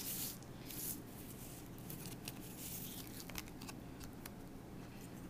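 Faint handling sounds of a plastic protractor and ruler being moved over paper: two short scraping rustles near the start, then a few light plastic clicks.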